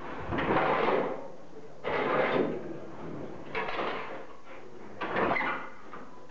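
Four scraping strokes, about one every second and a half, from hand work at a lever-operated earth-brick press as soil is shovelled and the steel press lever is worked.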